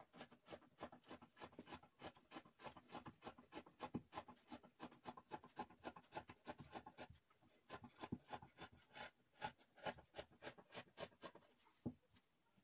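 Faint, quick snips of scissors cutting through thin crinkled fabric, about three to four a second, with a short pause midway, as a sleeve piece is cut out.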